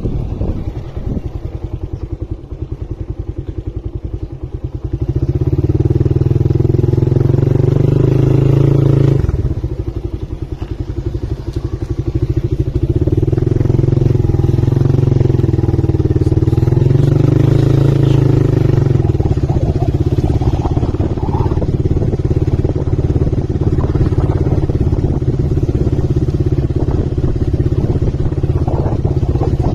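Suzuki motorcycle engine running as it is ridden. It pulls harder from about five seconds in, drops off suddenly just before ten seconds, climbs and varies again, then holds a steady drone for the rest.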